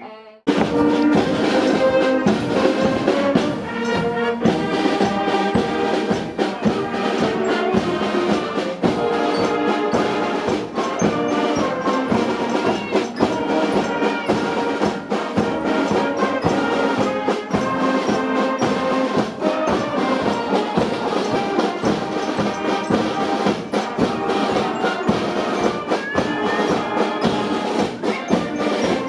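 Massed brass bands playing a piece together: trumpets and trombones over a steady drum beat, with the music starting suddenly about half a second in.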